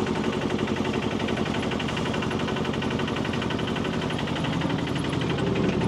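Tractor engine running steadily under load as it climbs a steep dirt road, with an even, rapid beat.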